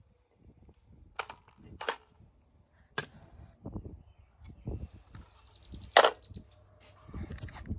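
Rifle shots at a shooting range: four sharp cracks spread unevenly, the loudest about six seconds in.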